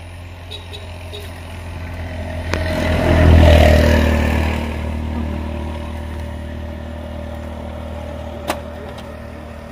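Motor vehicle engine running steadily, swelling to a loud peak about three seconds in and easing back down. A single sharp click comes near the end.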